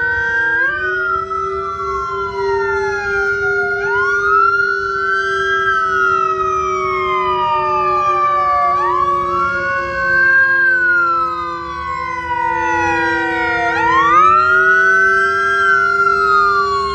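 Emergency sirens sounding together: a wail that rises quickly and falls slowly about every five seconds, over steady held tones.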